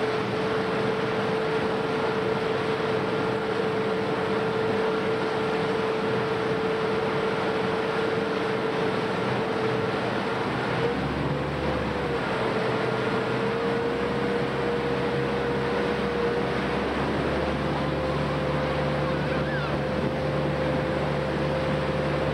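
Motorboat engine running at a steady speed while towing two inflatable tubes, with wind and rushing water. The engine's pitch rises a little past the middle as the boat picks up some speed.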